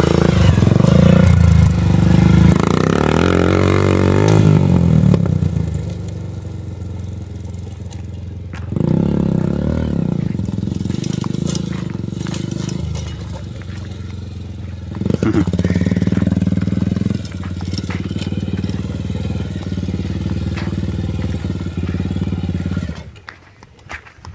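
Yamaha TT-R150 dirt bike's single-cylinder four-stroke engine, breathing through an aftermarket sport exhaust, revving hard as the bike climbs over rocks. It then runs fainter as the bike rides off across the dirt, comes back louder in surges, and drops away sharply near the end.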